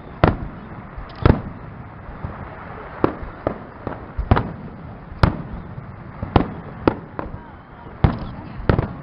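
Fireworks display: about a dozen shell bursts going off at irregular intervals, each a sharp bang over a steady background rumble.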